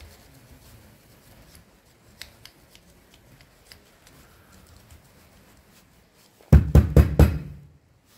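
Faint small clicks and scraping from a drill bit being worked into a heater control valve clogged with jellified antifreeze. About six and a half seconds in comes a quick run of four loud knocks.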